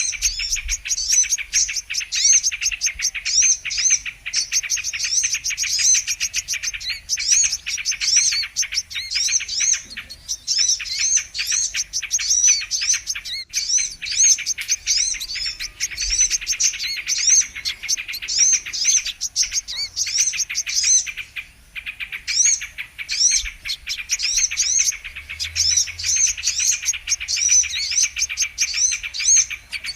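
Brown-throated sunbird (kolibri kelapa) song used as a bird lure: a dense, rapid stream of high, repeated chirps and twitters, with a few short breaks.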